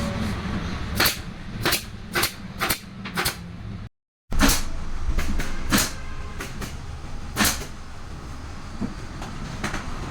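A series of sharp knocks, as from wood being worked and assembled, over a steady low rumble. About five come close together in the first three seconds, then more spaced ones follow. The sound cuts out briefly about four seconds in.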